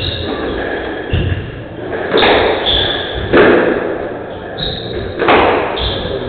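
Squash rally: the ball struck by rackets and hitting the court walls, a hard thud every one to two seconds in an echoing court. Short high squeaks of court shoes on the floor come between the hits.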